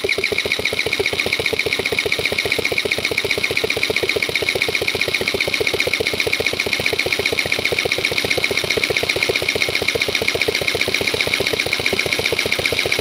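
Electric starter cranking an air-cooled single-cylinder scooter engine, with a compression gauge in the spark plug hole, in a fast, even pulsing rhythm. The gauge reads over 11 bar, showing the engine has good compression.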